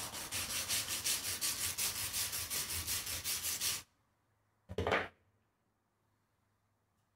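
Wire brush scrubbing fast back and forth over a rusty bolt, about six strokes a second, stopping just under four seconds in. One short knock follows about a second later.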